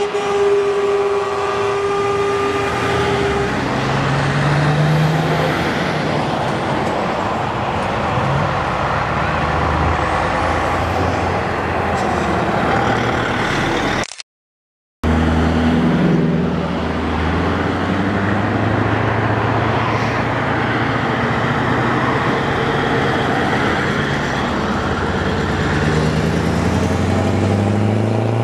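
Heavy trucks and vans passing close by one after another, with diesel engines running and tyre noise on the road. A truck horn holds one steady note for about the first three seconds, and the sound cuts out completely for about a second midway.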